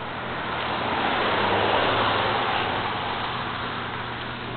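A car driving past: its road noise swells to a peak about two seconds in, then fades away.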